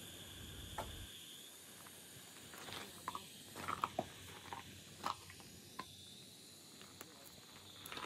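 Small live-steam model locomotive and its carriages on the track: a faint steady hiss with scattered sharp clicks and light taps, busiest near the middle.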